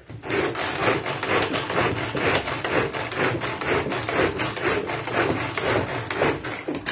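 Tupperware Extra Chef pull-cord chopper worked by hand, its cord pulled out again and again at about two pulls a second as the blades spin through soft pumpkin and purée it. The pulling stops suddenly near the end.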